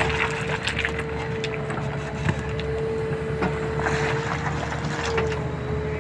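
JCB 3DX backhoe loader's diesel engine running steadily under work, with a steady high whine over the low rumble. Scattered knocks and clatters are heard every second or so.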